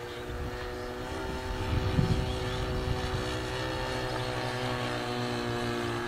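Irvine 53 two-stroke glow engine of a radio-controlled Pilatus PC-9 model plane running at a steady pitch as it flies its landing approach. A brief low rumble comes about two seconds in.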